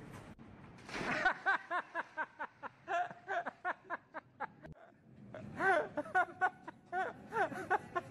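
A person laughing hard in quick ha-ha-ha bursts, about four or five a second, with a short break in the middle.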